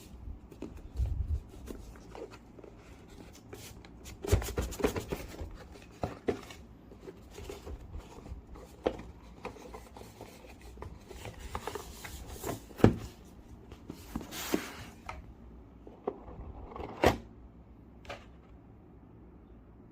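Small plastic parts being handled: irregular clicks, taps and knocks from a keyboard switch opener and switches, with a short rustle about fourteen seconds in.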